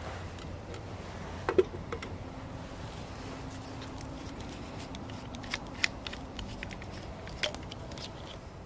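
A metal camp kettle set down on a wooden stump with a sharp knock, then scattered light clicks and clinks of the kettle and cups being handled.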